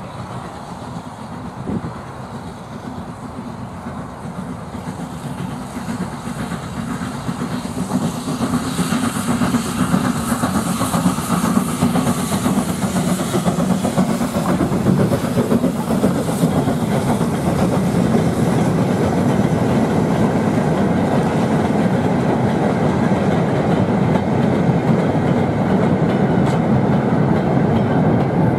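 A steam locomotive hauling a train of goods vans past at close range. The rolling wagons grow louder about a third of the way in and stay loud as the train runs by.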